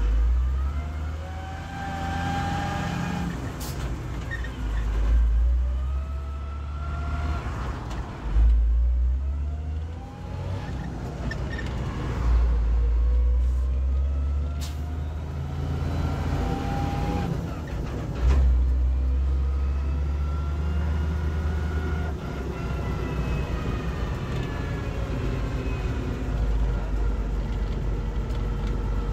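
MB-trac 1300 tractor's six-cylinder diesel engine, heard from inside the cab while driving on the road. Its pitch climbs several times and falls back in between, as when pulling up through the gears, with a strong low drone underneath.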